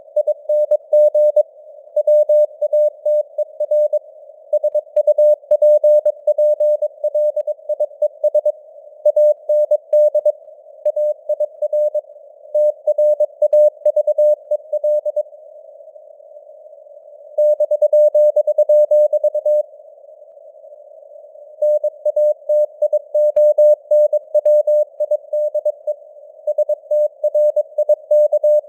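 Morse code (CW) at 22 words per minute: a single mid-pitched tone keyed on and off in quick dots and dashes over a narrow band of simulated radio hiss, like a CW signal heard on a receiver. The sending pauses twice for about two seconds near the middle.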